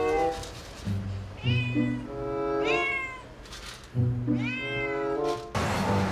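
Cat meowing several times, short calls that rise and fall in pitch, over background music with low held notes.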